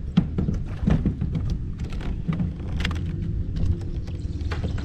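Wind buffeting the camera microphone in a steady low rumble, with irregular small taps and splashes of water against the kayak hull.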